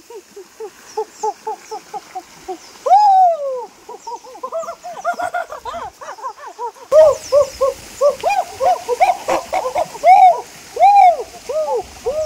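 Many short hooting calls overlapping in quick succession, with a few longer calls that rise and fall in pitch, about three seconds in and twice near the end.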